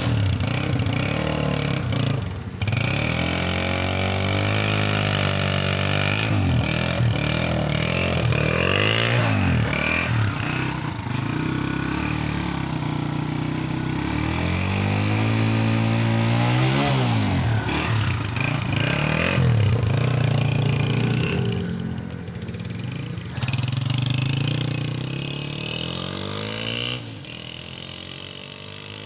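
Honda CG125 single-cylinder four-stroke engine idling and being revved several times, its note rising and falling with each blip of the throttle. It settles and grows quieter near the end.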